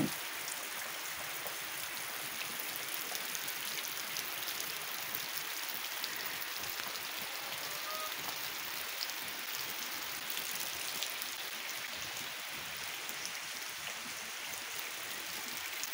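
Steady, calm rain falling on trees, grass and open ground, with scattered drop ticks and no wind or thunder.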